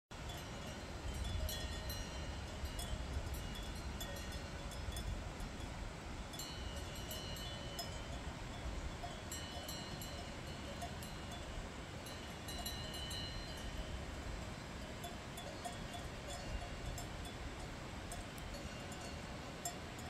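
Cowbells on grazing cows clanking and ringing irregularly, over a steady low rumble.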